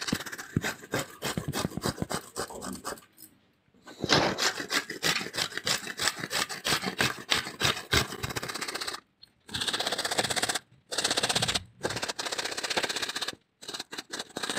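Peeled cassava root being grated on a flat stainless-steel hand grater into a steel bowl: fast, steady rasping strokes in runs, with a pause about three seconds in and several short breaks in the second half.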